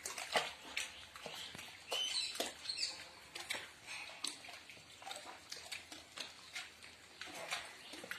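Faint water lapping and pattering in a rock pool around a floating swimmer, with irregular small clicks a few times a second and a few brief high squeaks.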